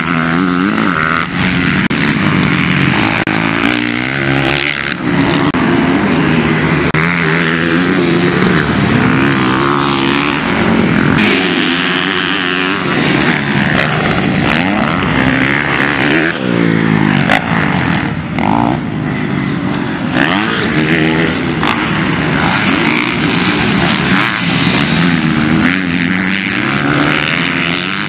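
Several motocross bikes racing together, engines revving up and down through the turns, many overlapping pitches rising and falling.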